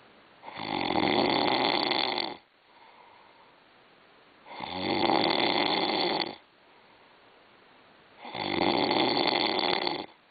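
A sleeping person snoring, the kind of snoring tied to sleep apnea: three snores about two seconds long, roughly four seconds apart, with faint breathing between them.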